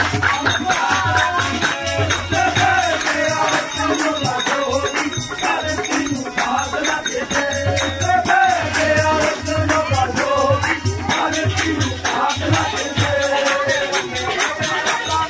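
Live devotional bhajan music: a dholak drum beats under a fast, steady jingling rattle, with a wavering melody line over it.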